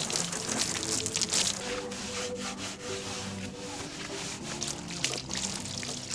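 Background music, with repeated rubbing strokes and water sounds beneath it as the plastic hardtop is washed.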